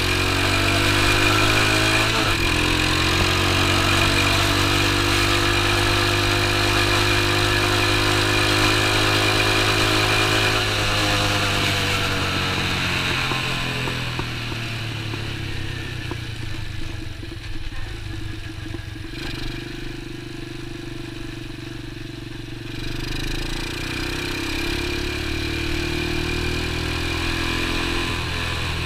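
Small four-stroke engine of an X19 super pocket bike under way in third gear, running steadily at first. About ten seconds in the engine note falls as the throttle eases off. It runs lower and quieter for a while, then picks up again near the end.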